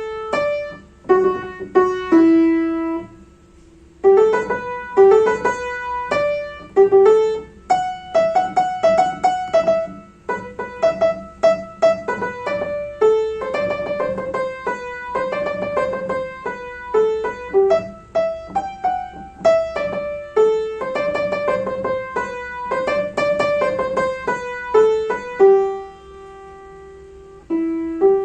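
Solo piano playing a K-pop song arrangement, melody over chords. The playing pauses on a held note about three seconds in and again near the end.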